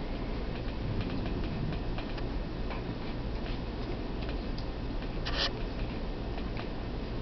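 A Papillon puppy and a cat scuffling in play: irregular light clicks and taps, with one louder rustling scuffle about five seconds in, over a steady low hum.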